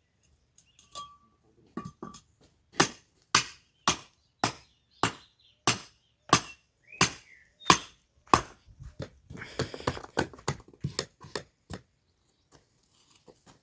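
About a dozen sharp blows, roughly two a second, as of something being hammered or chopped, then a quicker flurry of lighter knocks near the end.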